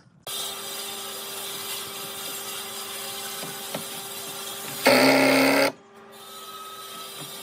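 An electric power tool switches on and runs with a steady whine. About five seconds in it gets much louder for under a second, then drops away and runs back up.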